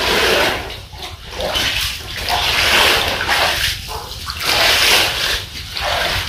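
Shallow water splashing and sloshing as hands sweep and scoop through it on a flooded floor, in repeated bursts about once a second.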